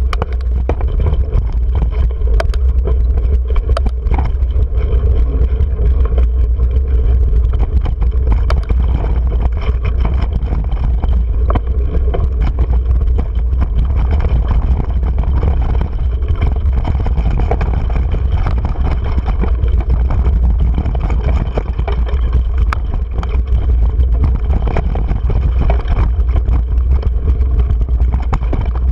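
Mountain bike ridden over rocky singletrack heard through a GoPro mounted on the rider: a loud, steady low rumble of wind and trail vibration on the camera, with frequent small clicks and knocks from the bike rattling over stones.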